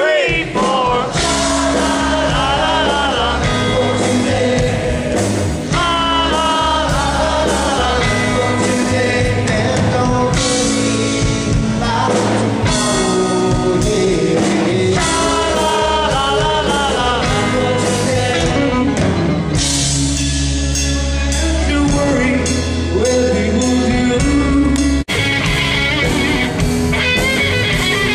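Live rock band playing, with a lead singer over bass and drums. The sound breaks off for an instant near the end and resumes with a brighter mix.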